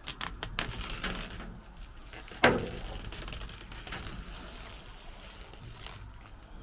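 Handling noise from gloved hands pressing down plastic-covered polycarbonate panes: light clicks and rustles, with one sharp knock about two and a half seconds in.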